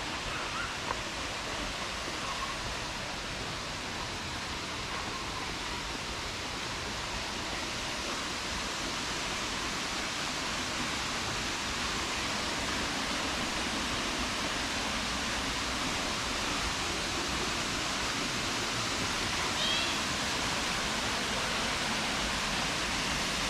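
Waterfall rushing, a steady wash of falling water that grows slightly louder, with a faint brief chirp near the end.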